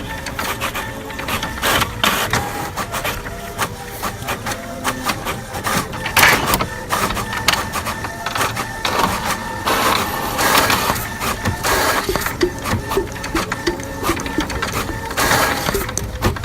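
Experimental noise composition made without real instruments: dense mechanical clicking and clatter over faint held tones. Louder rushes of noise come about six, ten and fifteen seconds in, and a run of short low blips enters in the second half.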